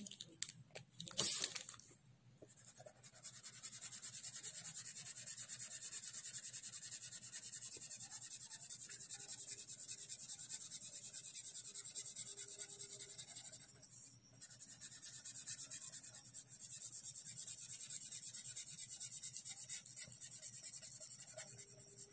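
Felt-tip sketch pen scratching on paper in rapid back-and-forth colouring strokes, with a short pause about 14 seconds in. A few light knocks in the first two seconds.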